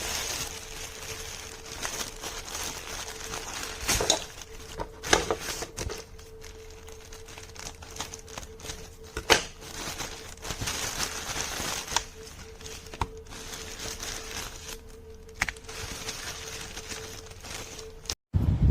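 Handling noise: crinkling and rustling with scattered sharp clicks and knocks, the loudest about four, five and nine seconds in, over a faint steady hum.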